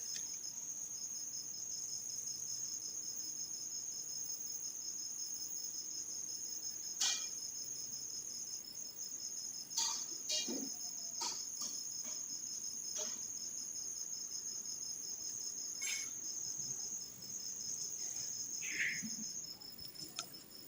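A cricket trilling steadily in an even, fast-pulsing high-pitched chirp that stops about a second before the end, with a few light clicks and knocks scattered through it.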